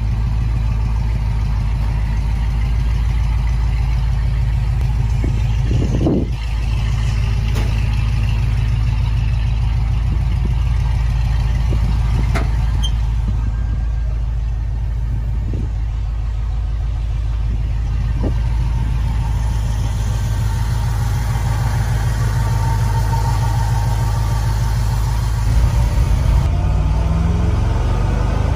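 1976 GMC K10's 350 cubic-inch small-block V8 idling steadily, with one thump about six seconds in. Near the end the engine pulls under load as the truck drives off, its pitch rising.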